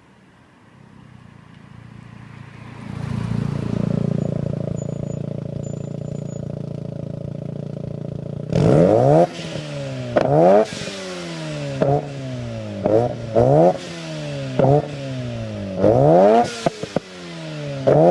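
Mazda RX-7 Turbo II's rotary engine, breathing through a 3-inch straight exhaust with an HKS Silent Hi Power muffler and a test pipe, growing louder over the first few seconds and then running steadily. From about eight seconds in it is revved in a string of quick, sharp throttle blips, roughly one a second, each rev climbing fast and falling back.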